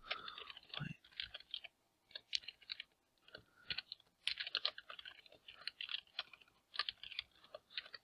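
Typing on a computer keyboard: irregular runs of quick key clicks broken by short pauses.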